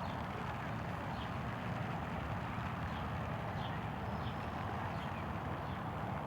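Light rain falling in the open: a steady soft hiss with faint, scattered small ticks, over a fluctuating low rumble.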